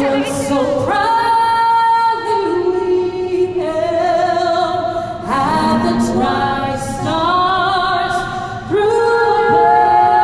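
A woman singing solo without accompaniment, holding long notes one after another.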